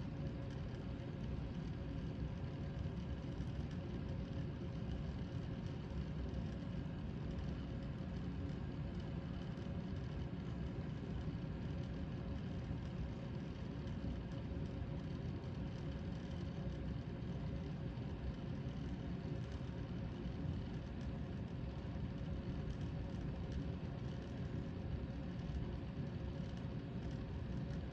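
Steady low hum and whir of a tornado lamp's small electric motor, spinning the liquid into a vortex.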